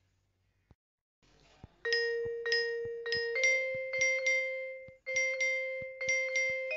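Background music of bright struck, ringing notes played about twice a second, starting after a second or so of near silence.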